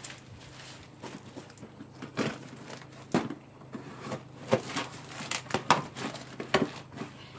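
Cardboard shipping box being torn open by hand: a run of irregular rips, crinkles and rustles.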